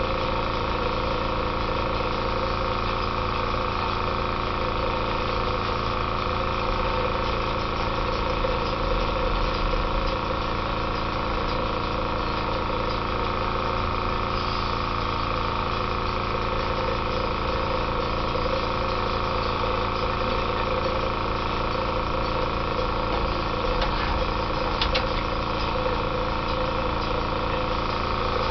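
Airbrush compressor running steadily: a constant motor hum with a hiss of air over it.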